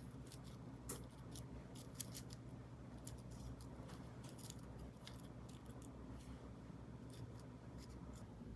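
Slime being worked by hand, giving faint, irregular, crisp clicks and crackles over a low steady hum.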